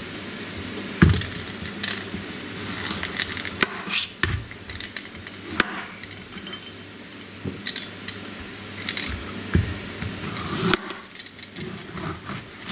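Kitchen knife cutting a zucchini on a plastic cutting board: separate knocks of the blade against the board every second or two, over a steady background hiss.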